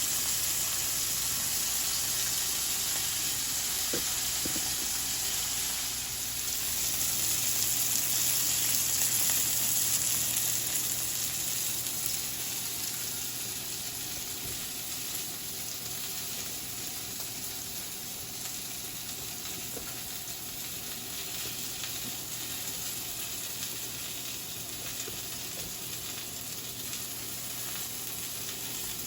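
Boiled crab pieces frying in hot oil in a pan on high flame, a steady sizzle that swells a little early on and then settles somewhat quieter.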